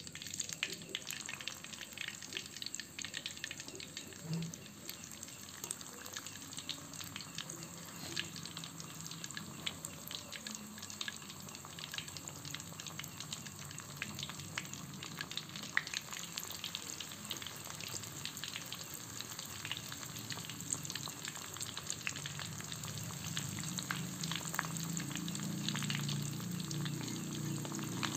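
Hot oil in a wok sizzling and crackling as spring rolls filled with pisang kepok banana fry in it, growing louder near the end as more rolls are frying.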